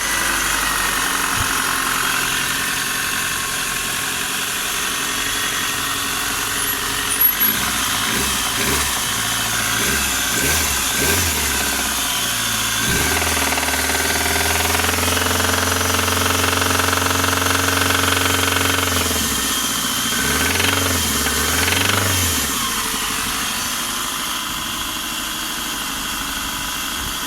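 Toyota 4A-GE 20-valve Blacktop inline-four running with a knock, which the owner puts down to a spun bearing shell. It idles, the revs climb about a third of the way in and are held for several seconds, then drop, come up once more briefly and settle back to idle. There is a sharp click about seven seconds in.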